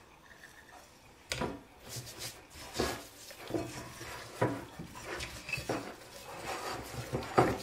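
Hands turning and rubbing a raw whole chicken in a bowl: irregular soft slaps and knocks as the bird shifts against the bowl, starting about a second and a half in.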